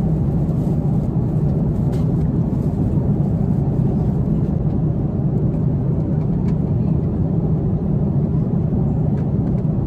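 Steady low cabin noise of an airliner in flight, engine and airflow humming evenly, with a few faint crinkles as packaged in-flight food is handled.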